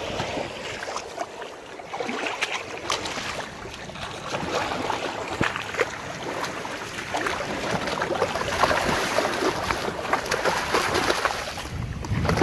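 Water splashing and sloshing as a hooked ray thrashes in the shallows at the water's edge, with many irregular splashes over small waves washing in, busiest and loudest in the later part.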